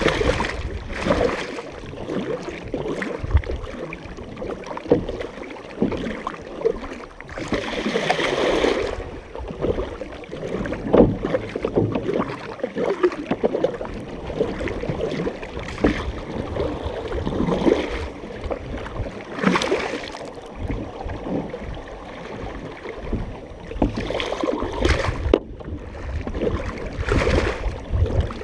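Several canoe paddles stroking through the water close beside the hull, each stroke a short splash and gurgle, repeating about every second or two, with water running along the hull between strokes. One longer, louder splash or rush comes about a third of the way in.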